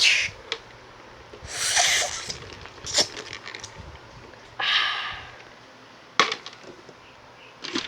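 Person eating something crunchy: several sharp cracks and snaps, with two half-second rushing, breathy bursts in between.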